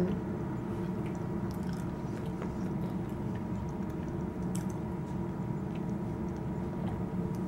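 Soft chewing and mouth clicks from someone eating banana, over a steady background hum.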